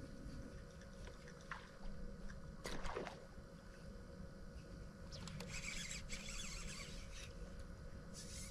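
Faint sounds of a bass boat sitting on calm water: a steady low hum with water lapping at the hull, a short rattle about three seconds in, and patches of soft hiss in the second half.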